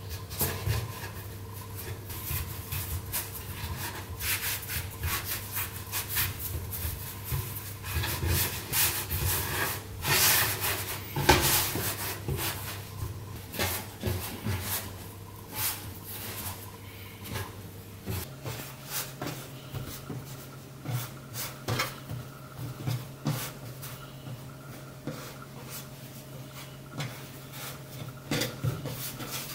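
Hands rolling and braiding strands of bread dough on a wooden cutting board: a string of soft, irregular rubbing strokes and light knocks. Underneath runs a steady low hum that steps up in pitch a little past halfway.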